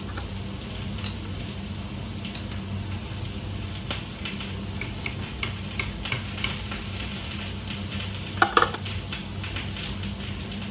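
A spoon stirring curry in a stainless steel pot, with scattered light clicks and taps of metal on metal and a louder clatter about eight and a half seconds in, over a steady low hum.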